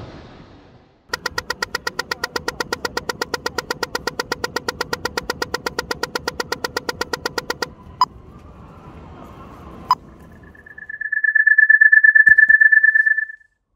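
Pedestrian crossing signal ticking rapidly, several ticks a second, for about six seconds before stopping abruptly: the walk-phase signal. Two sharp clicks follow, then a steady high-pitched beep of about two seconds near the end.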